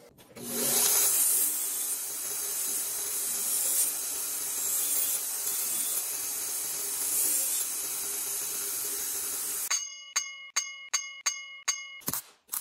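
Belt grinder grinding a small steel piece: a steady, high, hissing grind for about ten seconds that stops suddenly. Then come about seven sharp metallic taps, evenly spaced, each ringing briefly.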